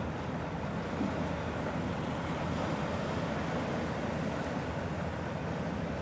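Steady wind noise on the microphone mixed with the wash of small waves on the sea, an even rumble with no distinct events.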